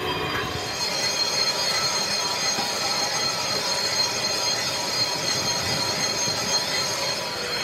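Metalworking machinery in a brake drum workshop giving a steady, high-pitched metallic squeal made of several held tones over a grinding noise, the sort made by metal being cut or ground.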